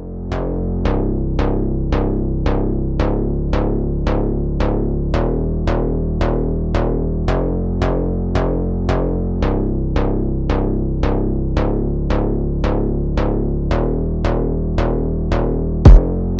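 Electronic funk track made in FL Studio: sustained synthesizer chords and bass under a sharp drum-machine tick repeating about twice a second. Near the end a loud, low drum hit comes in.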